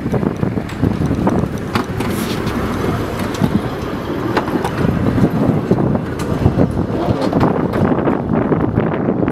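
Narrow-gauge electric tram running along the track, its wheels and body rattling with frequent clicks and knocks over the rails, with wind buffeting the microphone.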